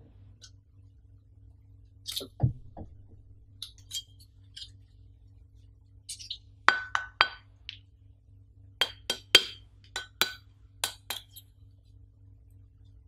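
Light clinks and taps from the Samson MD5 microphone stand's round weighted base as it is handled and lifted out of its cardboard box. Several taps leave a short ringing tone. Three come close together about seven seconds in, and a quicker run of them follows a couple of seconds later.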